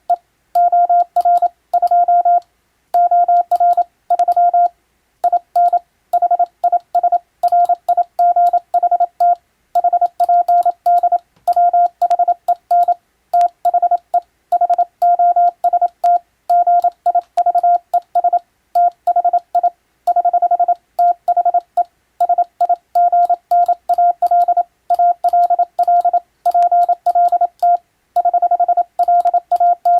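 Hand-sent Morse code (CW): a single steady beep tone near 700 Hz keyed rapidly on and off in dots and dashes, with short pauses between characters and words and a longer pause about four and a half seconds in. It carries an English-language practice telegram, sent at speed, with faint clicks alongside the keying.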